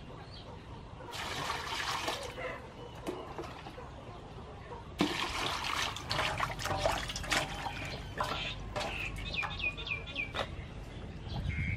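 Water scooped from a bucket with a plastic dipper and poured into an aluminium basin, then splashing and clattering as vegetables are washed in it by hand.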